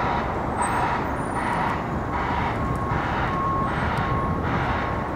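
Vehicle reversing alarm beeping steadily, about seven evenly spaced beeps, over a constant rumble of city traffic.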